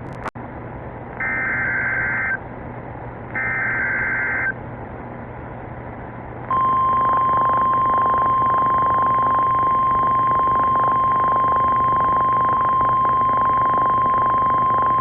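NOAA Weather Radio Emergency Alert System signal: two short bursts of warbling digital SAME header tones, each about a second long, then the steady warning alarm tone held for about nine seconds over radio hiss. The sequence announces a new severe thunderstorm warning.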